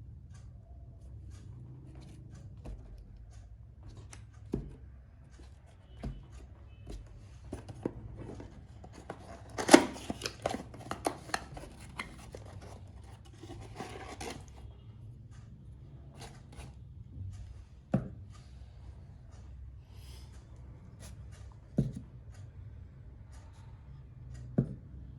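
Objects being handled on a hard surface: scattered light taps and knocks, with a stretch of busy rustling and clattering about ten to fourteen seconds in that holds the loudest knock. A steady low hum runs underneath.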